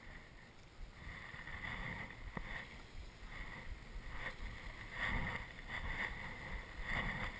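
Water lapping against the hull of a small boat on a calm sea, in uneven swells of noise, with a single light click about two seconds in.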